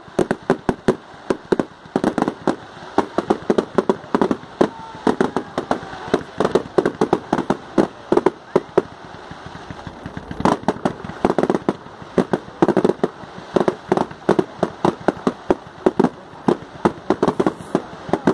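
Fireworks going off: a rapid, unbroken series of sharp bangs and crackles, several a second, with a faint whistle gliding through now and then.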